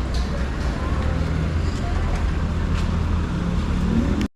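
Street traffic with a steady low engine rumble; near the end an engine's pitch rises as a vehicle speeds up. The sound cuts off abruptly at the very end.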